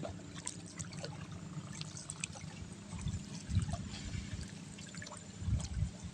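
Water trickling and lapping, with scattered light clicks and a few low rumbling thumps, about halfway through and again near the end.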